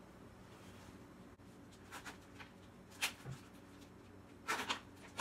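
Quiet room with a few light clicks and rustles from handling makeup tools: a single sharp click about three seconds in and a louder cluster near the end, over a faint steady hum.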